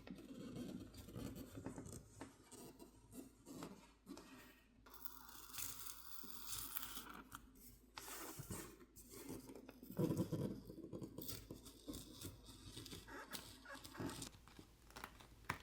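Plastic pry tool working under a smartphone's heat-softened plastic backplate: faint, irregular scraping and crackling as the adhesive tears loose, with a louder stretch about ten seconds in.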